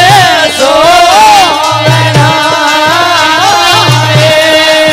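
Male voice singing a Rajasthani devotional folk story (katha) in a bending, ornamented melody over a steady held drone, with a deru drum keeping a regular beat. The voice stops about four seconds in while the drone and drum go on.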